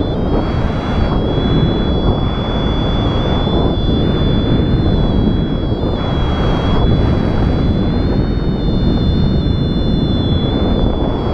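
Strong wind buffeting the microphone: a loud, steady rumbling rush, with a thin high-pitched tone held over it throughout.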